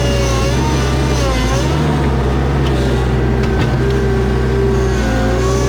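Toyota diesel skid steer engine running steadily under load, with a hydraulic whine that wavers up and down in pitch as the machine digs into a compacted dirt pile with its tooth bucket.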